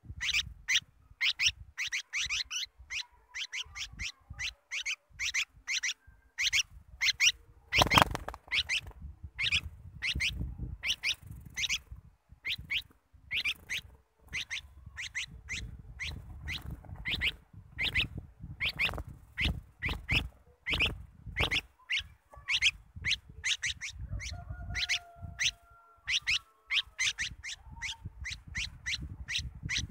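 A bulbul calling with short, sharp notes over and over, about two to three a second, with low thumps of handling noise underneath.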